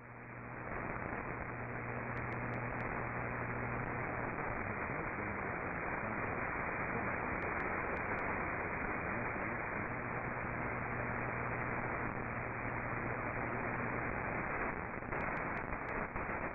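Steady radio static hiss with a low hum underneath and a few faint clicks in small clusters, filling a gap where the relayed spoken weather warning drops out.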